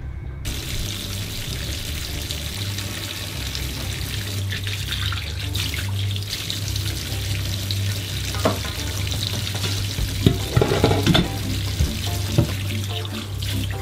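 Kitchen tap water running into a sink or pot, turned on about half a second in, with a few knocks in the second half, over background music.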